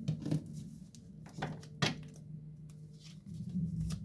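A few light taps and clicks of tarot cards being handled and set down on a table, over a faint steady low hum.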